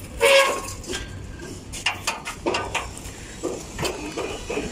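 Irregular knocks, clunks and scraping as an air-conditioner outdoor condensing unit is shifted by hand on its metal stand, with a louder sound just after the start.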